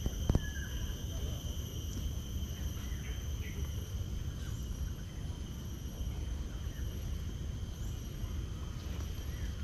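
Insects in the garden vegetation giving a steady, high-pitched drone, over a low rumble of wind and handling on the microphone. A single short knock comes just after the start.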